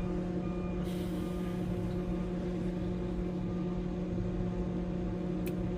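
Semi truck's diesel engine idling with a steady hum, with a short hiss about a second in and a single click near the end.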